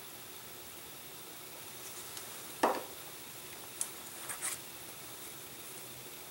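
Light handling noises of a balsa-and-plastic-film model tail being worked by hand at a table, over a steady faint hiss: one sharp tap about two and a half seconds in, then a few soft clicks a second or two later.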